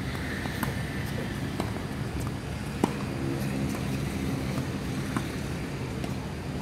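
Tennis ball struck by rackets during a quick doubles exchange: a handful of sharp pops about a second apart, the loudest about three seconds in, over a steady low background hum.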